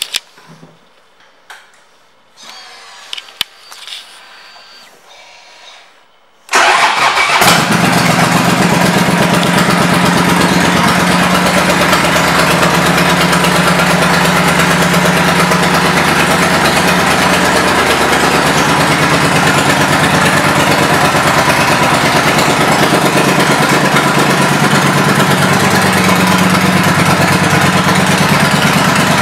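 A 2014 Triumph Thunderbird LT's 1700 cc parallel-twin engine, with aftermarket exhaust, starts suddenly about six seconds in and settles into a steady idle. Before the start there are only a few faint clicks.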